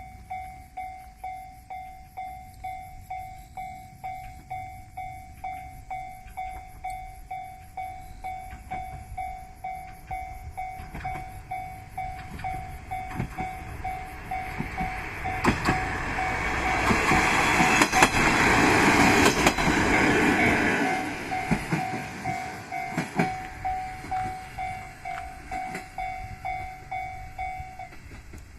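Japanese level-crossing alarm ringing its repeating bell at about one and a half strikes a second while a diesel railcar passes, its wheels clicking over the rail joints. The train is loudest a little past the middle. The bell stops near the end, after the train has gone.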